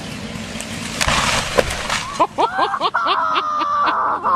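A tall conifer crashing down onto a house roof: wood splintering and breaking in a dense crash about a second in, followed by crackling and a run of short rising pitched sounds.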